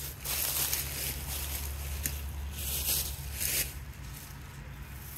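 Wind gusting through dry autumn leaves: two bursts of rustling, one near the start and one about two and a half seconds in, over a steady low rumble.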